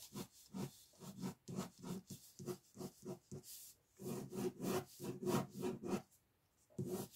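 Ink pen scratching across paper in quick, repeated sketching strokes, about three a second, with a couple of brief pauses.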